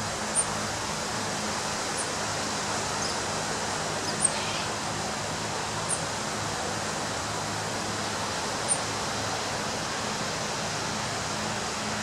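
Steady wash of ocean surf on a beach, an even rushing noise without distinct breaks, with a bird giving short high chirps about five times.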